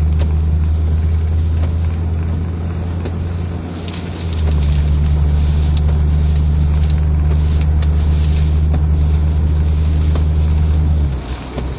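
Car engine and road noise heard from inside the cabin while driving: a steady low drone that sags briefly about four seconds in, comes back, and drops off sharply near the end. Faint scattered ticks ride over it.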